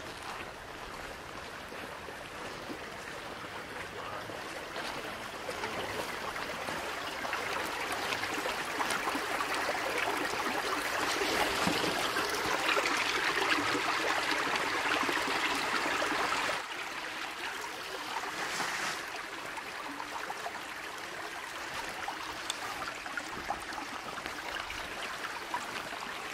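Small stream running over stones, a steady rush of water that grows louder toward the middle and drops abruptly about two-thirds of the way through.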